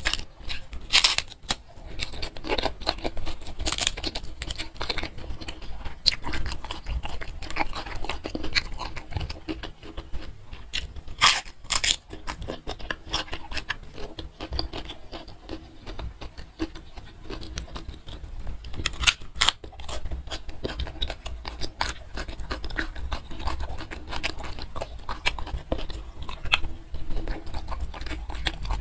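Close-miked eating sounds: wet chewing, lip smacks and soft crunches from hand-eaten rice, chicken and fish, in irregular clicks throughout. A papery tissue rustle near the start as greasy fingers are wiped.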